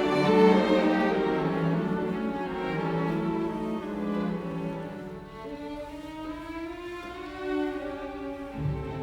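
Background music of bowed strings, violin and cello, playing slow sustained notes.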